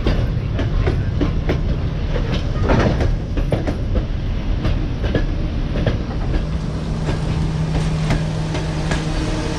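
Long-distance passenger coaches rolling slowly past on arrival, their wheels clicking over the rail joints over a low rumble. A steady low hum joins about six and a half seconds in.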